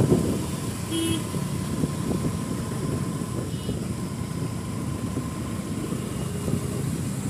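Motorcycle engine running with road and wind noise while riding in traffic, and a short vehicle horn toot about a second in.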